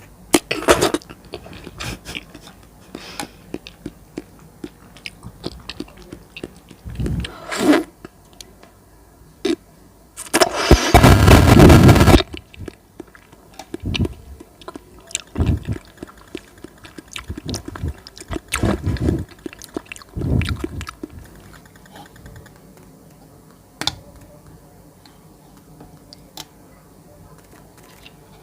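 Close-miked eating sounds: irregular wet chewing and slurping of soft jelly, with a loud noisy burst lasting about two seconds near the middle.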